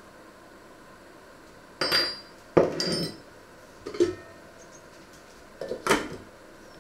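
Metal clinks and knocks of kitchen utensils against a stainless steel saucepan, in four short clusters with a brief ringing after the sharper ones.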